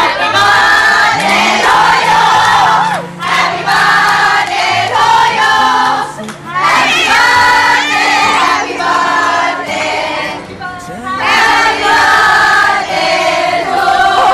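A group of people singing together, many voices at once with low held notes beneath, pausing briefly between phrases.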